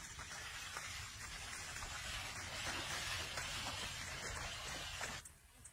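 Muddy water sloshing and splashing as a pair of oxen drag a wooden leveller through a flooded rice paddy, a steady wash of water noise that cuts off abruptly near the end.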